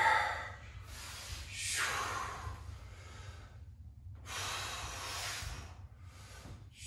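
A man breathing under the exertion of a kettlebell Turkish get-up: two long breaths of a couple of seconds each, with a shorter one near the end.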